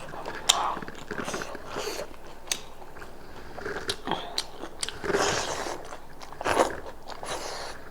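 Close-miked eating: chewing and biting goat meat, with sharp mouth clicks and crunches and a few longer, rougher eating noises about two-thirds of the way in.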